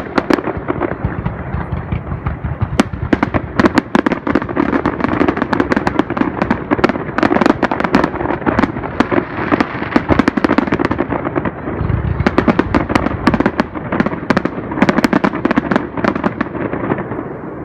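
Fireworks display in a continuous rapid barrage: many sharp bangs and crackles a second over a steady rumble. It thins out at the very end.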